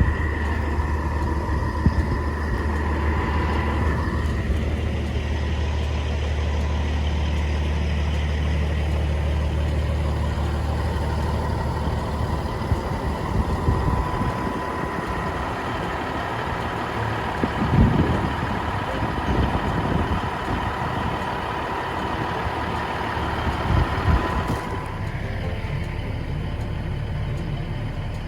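Truck running: a steady low engine drone that thins out about halfway through, with a few thumps later on.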